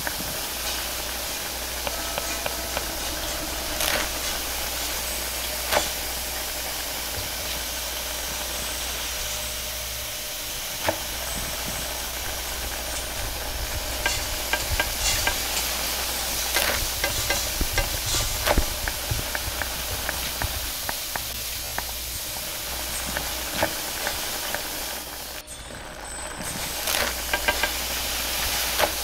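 Food sizzling in a wok over a gas wok burner, with a steady hiss and low rumble and frequent clicks and knocks of metal tongs and spatula scraping and tossing against the wok. Near the end, water hisses and steams in the hot wok.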